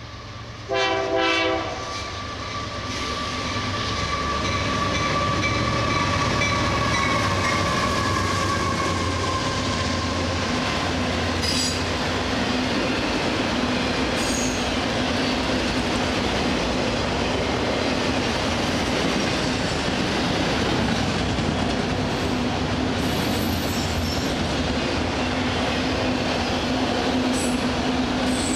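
A freight train of autorack cars passing close by: a short locomotive horn blast about a second in, a whine sliding down in pitch as the locomotive goes by, then a steady rumble of the autorack cars rolling past with wheel noise on the rails.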